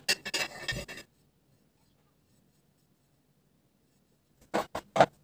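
Metal palette knife scraping and rubbing as it spreads whipped cream over a cake for about a second. After a pause of a few seconds, three short quick scrapes come near the end.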